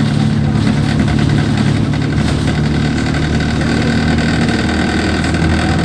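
Diesel engine of an Alexander Dennis Enviro200 single-deck bus idling roughly: a steady, loud low engine drone.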